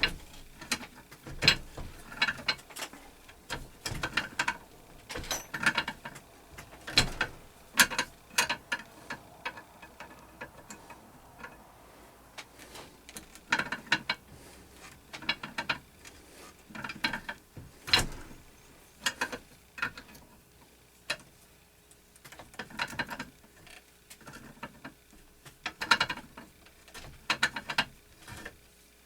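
Hand tools on metal: irregular clicks and clinks in short clusters, with a ratcheting, mechanical quality, some every second or two.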